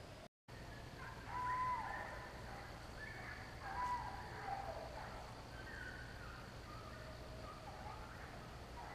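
Several hunting hounds baying faintly in the distance. Drawn-out calls hold a note and then slide down in pitch, overlapping one another, with the loudest two about a second and about four seconds in.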